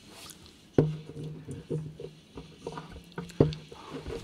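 Handheld microphone being passed and handled: irregular knocks and bumps picked up through the sound system, with a low hum coming in alongside them.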